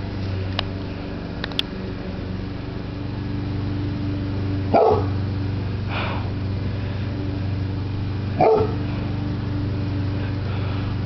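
A dog giving single alarm barks at a hot air balloon overhead: one loud bark about five seconds in, a fainter one about a second later, and another loud bark near eight and a half seconds, over a steady low hum.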